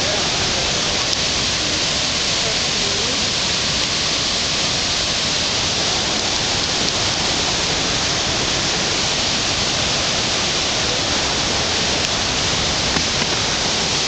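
Steady rushing roar of a river in flood, an even, unbroken wash of water noise that holds at one level throughout.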